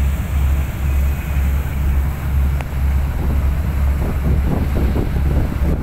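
A heavy engine's steady low rumble, with wind buffeting the microphone, the gusts heavier in the second half.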